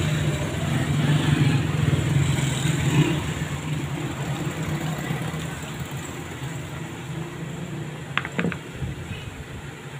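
Steady low engine hum in the background, slowly fading. About eight seconds in, two or three small sharp clicks as a screwdriver is set down on the workbench.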